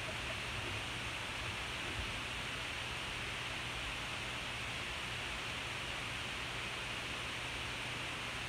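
Steady hiss with a faint low hum underneath, unchanging throughout: the background noise of a poor-quality recording.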